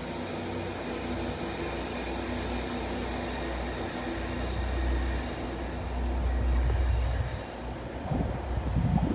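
A train running with a steady low rumble and hum. A high-pitched hiss starts about a second and a half in and stops about six seconds in.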